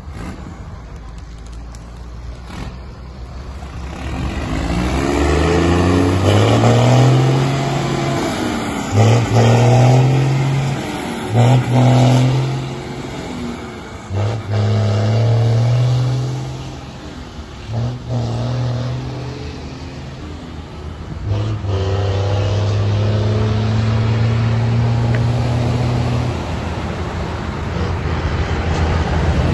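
Truck diesel engine pulling hard through the gears, its pitch climbing in each gear and dropping at each of several upshifts, then holding steady near the end.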